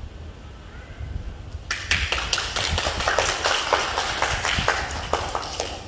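Applause from a small group of people, many quick irregular hand claps. It starts about two seconds in and lasts about four seconds.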